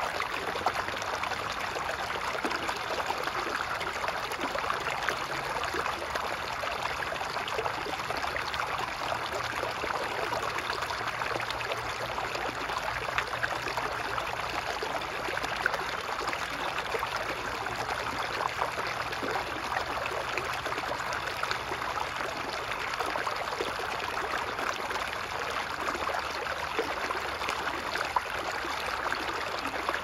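Shallow stream running over stones and pebbles: a steady babbling rush of water, with small splashes scattered through it.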